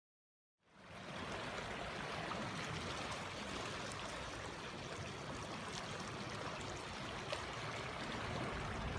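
Yampa River water rushing and flowing steadily, fading in about half a second in.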